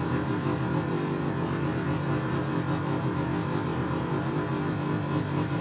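Snowmobile engine running steadily at an even pitch as the sled circles.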